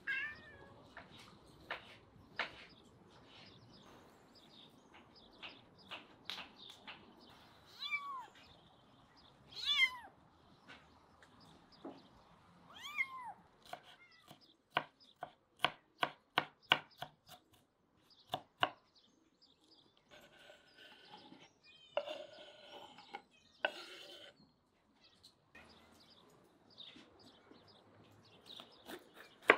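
A tabby cat meowing about four times, each call falling in pitch. About halfway through, a knife chops vegetables on a wooden cutting board in a quick, even run of strokes, followed by a few scattered cutting sounds.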